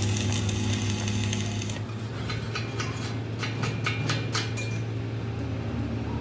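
Workshop machinery running with a steady low hum. A hissing noise covers the first two seconds, then a quick run of sharp clicks and taps, about three or four a second, for a couple of seconds.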